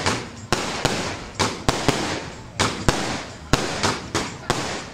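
Aerial firework shells bursting in quick, irregular succession, roughly two to three sharp bangs a second, each followed by a hiss that fades away.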